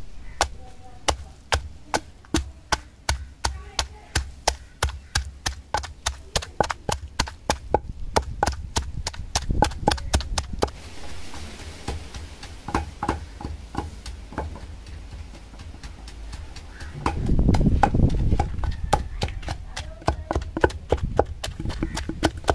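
Long wooden pestle pounding tamarind flowers and palm jaggery in a granite stone mortar: a steady rhythm of dull strikes, about two to three a second. A stretch of low rumbling noise rises over the strikes about three-quarters of the way through.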